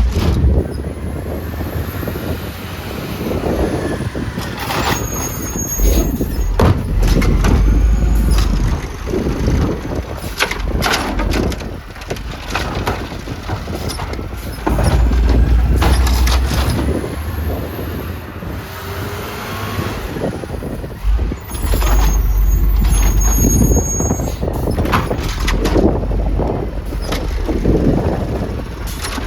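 Garbage truck working with repeated air brake hisses, brake squeals and clanks, while wind buffets the microphone in heavy low gusts.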